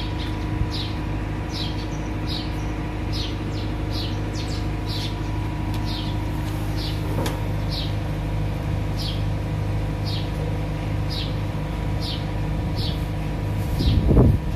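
A bird chirping over and over, about two short falling chirps a second, over a steady low mechanical hum. A louder rustling starts near the end.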